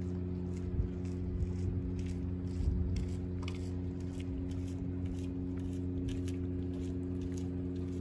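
A cat biting and chewing a raw fish: irregular wet crunching clicks, over a steady low hum.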